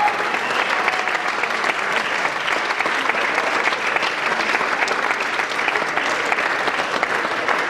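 Audience applauding, steady dense clapping that thins slightly near the end.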